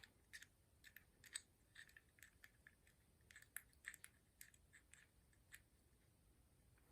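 Faint, irregular small clicks and scratches of a Zippo lighter's flint spring being put back into the insert's flint tube.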